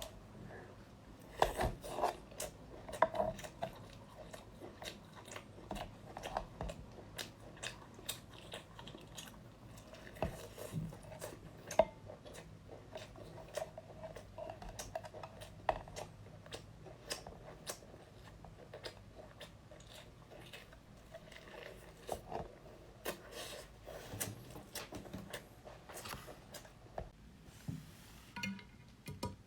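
A person biting into and chewing a large fried chicken cutlet at close range, with crunching and irregular wet chewing clicks; the loudest bites come in the first few seconds and again about twelve seconds in.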